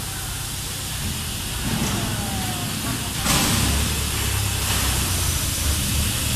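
Industrial noise around a drum-filling machine for motor oil: a steady low hum and rumble, with a loud hiss that starts suddenly about three seconds in.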